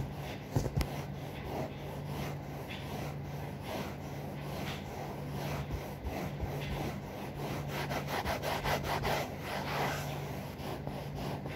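A cloth scrubbing sofa upholstery with toothpaste, a steady run of quick rubbing strokes that grows louder and busier past the middle.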